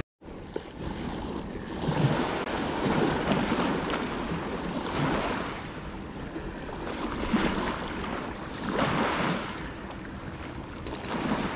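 Sea waves breaking and washing in, swelling every second or two, with wind on the microphone.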